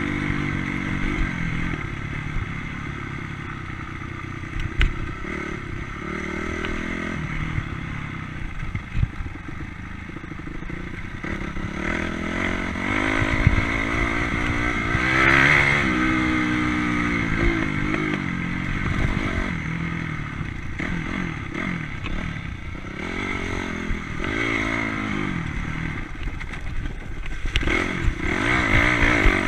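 Trail motorbike engine running under changing throttle, its revs rising and falling. There are scattered knocks and rattles from riding over a rough gravel track.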